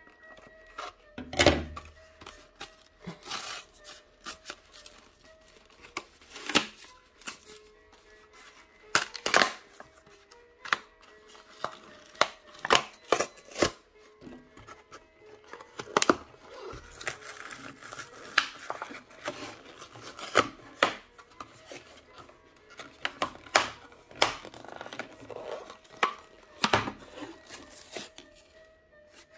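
Scissors snipping through stiff plastic blister packaging, with the plastic and cardboard crackling and tearing as it is pulled apart: irregular sharp snips and crackles, the loudest a thump about a second and a half in. Faint background music runs underneath.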